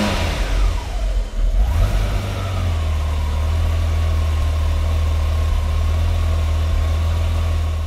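A motor vehicle engine revving, its pitch dropping and climbing again in the first two seconds, then settling into a steady idle with a deep hum.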